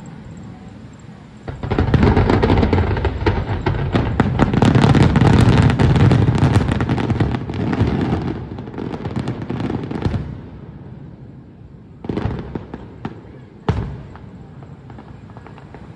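Aerial fireworks display: a dense barrage of bangs and crackling sets in about a second and a half in and keeps going for about eight seconds, then thins to a few separate bangs near the end.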